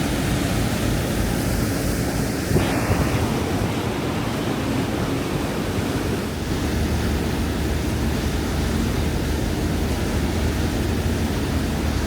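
Steady wind buffeting the microphone over rushing sea water, with a low steady hum underneath and a brief louder gust about two and a half seconds in.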